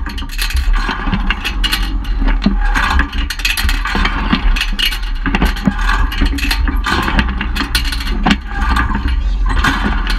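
Wind rushing over and buffeting the microphone of a camera mounted on a slingshot ride's capsule as it swings through the air: a loud, continuous low rumble with a hiss that rises and falls.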